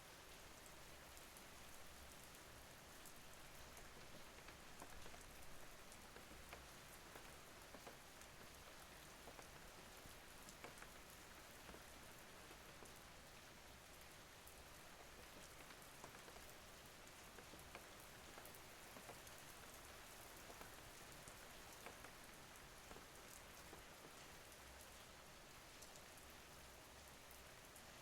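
Faint, steady rainfall, with many small drop ticks scattered through it.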